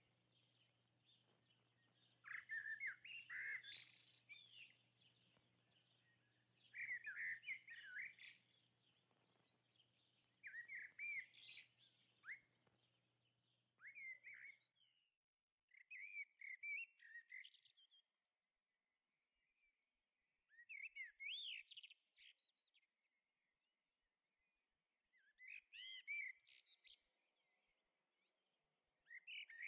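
A songbird singing short phrases of gliding whistled notes, one phrase every three to five seconds.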